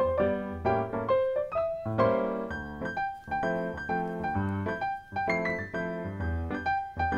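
Background piano music with a steady beat.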